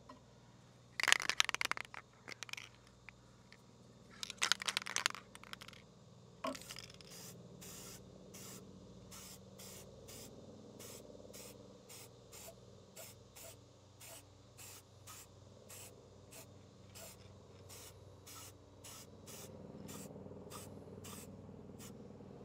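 Aerosol can of copper spray head gasket sealant hissing in two bursts in the first five seconds as it coats an engine's cylinder deck, followed by a steady run of short light clicks, about two a second.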